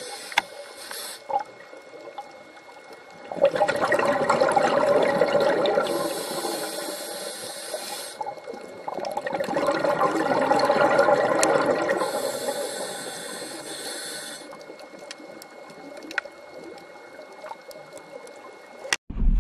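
Scuba regulator breathing underwater: a high hiss on each inhale, about every six seconds, alternating with a louder gush of exhaled bubbles.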